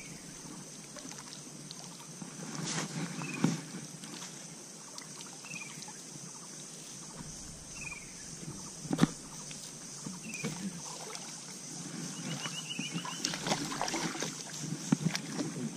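Water sloshing and splashing around the legs of a person wading in a shallow river while handling a cast net, with a few sharp knocks and splashes, the loudest about nine seconds in and several more near the end. A bird gives short falling chirps every couple of seconds over a steady high hiss.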